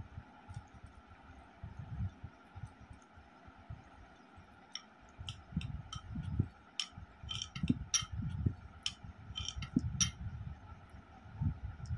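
Close-up eating sounds: a hand mixing rice and curry on a plate, with light clicks and clinks from about five to ten seconds in as gravy is tipped out of a glass bowl with a plastic spoon.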